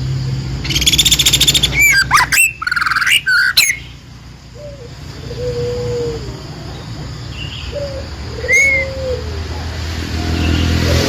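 Songbird calling: a fast high trill about a second in, then a string of sharp whistled notes sweeping up and down, followed by several lower drawn-out notes.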